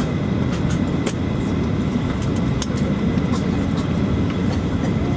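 Cabin noise of a Boeing 737-400 taxiing: a steady low rumble from its CFM56 engines at taxi power, with a faint steady whine above it and a few light clicks and rattles.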